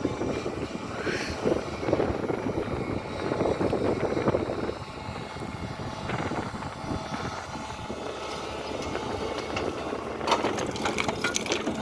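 SANY excavator running while it digs, its engine noise rising and falling, with a run of sharp clattering knocks near the end.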